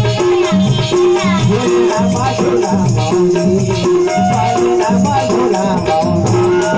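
Live devotional folk music: a harmonium-led melody over a steady hand-drum rhythm, with jingling rattle or cymbal percussion keeping time.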